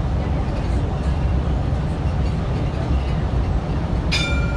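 Steady engine and tyre rumble inside a city bus driving along an open road, with a short electronic beep about four seconds in.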